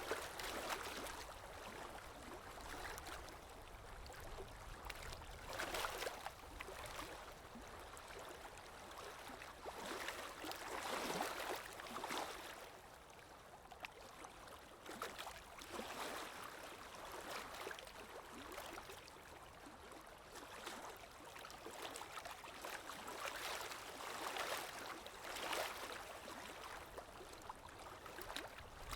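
Ambient recording of water lapping, with wind. It is a soft, continuous wash that swells and fades irregularly every few seconds.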